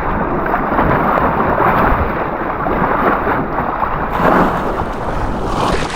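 Fast river water rushing through a rapid, a dense steady rush buffeted by wind on the microphone; from about four seconds in the sound turns brighter and crisper.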